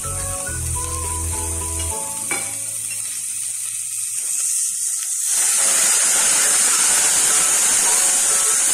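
Food frying in a hot pan: a light sizzle under background music, swelling to a loud, steady sizzle about five seconds in.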